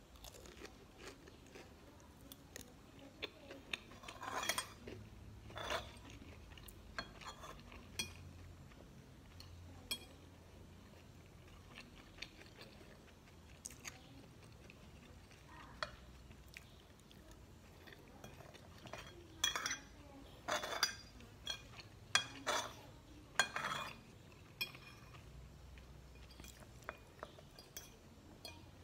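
Metal spoon and fork clinking and scraping against a ceramic plate while scooping up fried rice, with chewing in between. The clinks come singly and sparsely, then several in quick succession about two-thirds of the way through.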